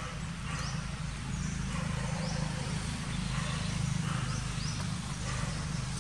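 Outdoor ambience: a steady low hum with short, faint, high rising chirps about every second.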